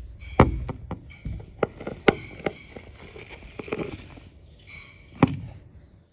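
Kittens scampering and pouncing on a floor: several sharp thumps and knocks, the loudest about half a second in and again near the end, with light scrabbling of paws between.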